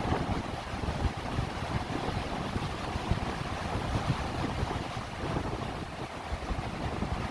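Ocean surf washing in and around a wooden pier, a steady rushing noise, with wind buffeting the microphone in an uneven low rumble.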